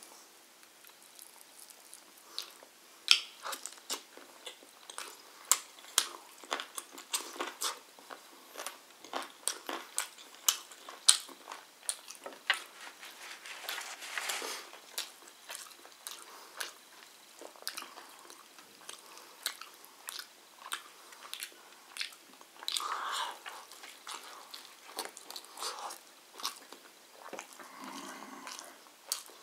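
Close-up eating sounds: irregular wet chewing and lip smacks with many sharp clicks, as a whole roast chicken is pulled apart by hand and eaten with rice and flatbread. A longer tearing stretch comes about midway, as flatbread is torn.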